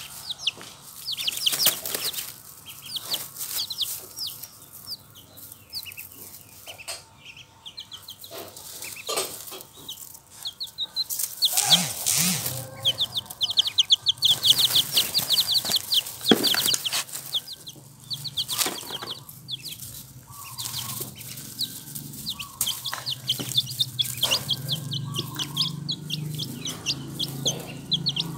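Baby chicks and ducklings peeping in rapid runs of short high-pitched calls, busiest in the middle and near the end, with rustling and pecking in the straw bedding.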